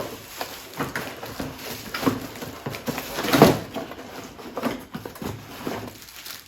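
Packaging of a new power tool being handled while parts are taken out of the box: irregular rustling, knocks and clicks, with a louder rustle about three and a half seconds in.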